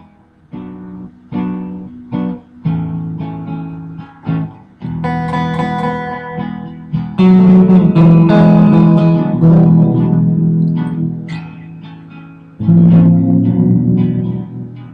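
Amplified Fender Stratocaster electric guitar being played: separate picked notes and short phrases, then two loud ringing chords, about seven seconds in and again near the end.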